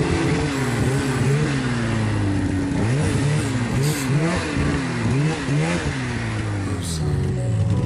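Polaris Pro RMK 600 snowmobile's two-stroke engine revving up and down as the sled works through deep powder. The throttle changes come quickly through the middle, over a steady hiss.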